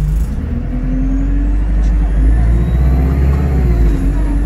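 Bus engine and drivetrain running under load, heard from inside the passenger cabin as the bus drives along. The steady engine note steps up to a higher pitch about a quarter second in, then holds with a slight waver.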